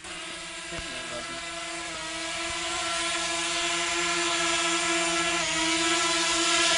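Small quadcopter drone's propellers, a DJI Mavic Mini, whining with a steady pitched hum that grows gradually louder.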